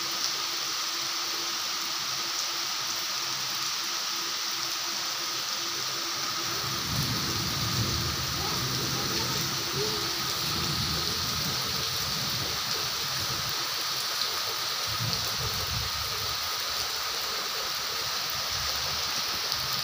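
Steady downpour of rain splashing on wet concrete, puddles and lawn, an even hiss throughout. A low, uneven rumble joins about a third of the way in.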